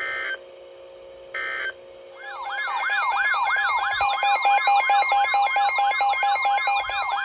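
Emergency Alert System tones: two short data bursts of digital screech, then a loud electronic alert tone that warbles rapidly up and down, about three sweeps a second, over a steady tone. It marks the end of one warning and the start of the next.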